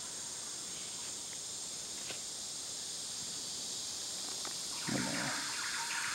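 Rainforest ambience: a steady high-pitched drone of insects. About five seconds in there is a soft bump, and then a rapid, broken animal call joins in.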